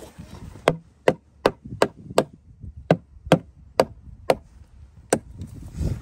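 Black rubber mallet knocking a cedar stave of a wood-fired hot tub to seat it against the round floor. About ten sharp, dull knocks come roughly half a second apart, with a short pause partway through and a last knock near the end.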